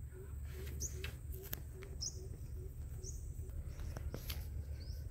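Birds calling: a low hooting note repeated two or three times a second, which stops about three seconds in, and a short high chirp about once a second. A steady low rumble runs underneath.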